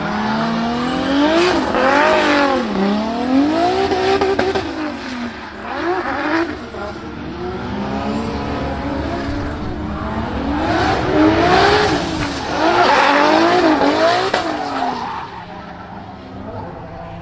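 Nissan Silvia S15 drift car's swapped 2JZ straight-six, turbocharged, its revs climbing and dropping again and again as it holds a drift, over squealing tyres. It is loudest in two passes, about a second in and again after ten seconds, and fades near the end.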